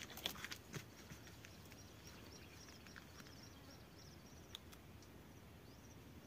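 Quiet outdoor ambience: a faint, high chirping repeating every fraction of a second over a low hiss, with a few soft clicks near the start and one more a little past halfway.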